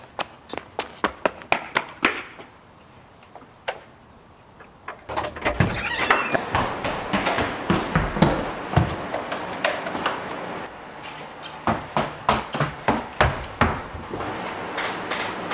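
A child's running footsteps on hard indoor floors, a string of quick thuds. They come about four a second at first, then turn louder and denser from about five seconds in.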